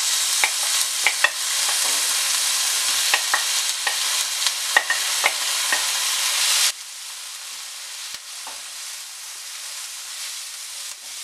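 Crushed green chillies and small onions sizzling as they are tipped into hot oil with ginger and garlic in a pan, with sharp clicks and scrapes of a spatula against the pan and bowl. About two-thirds of the way through, the sizzle suddenly drops to a quieter hiss.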